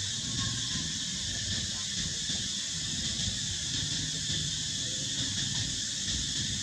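Steady high-pitched drone of insects, with a low rumble underneath and no distinct calls.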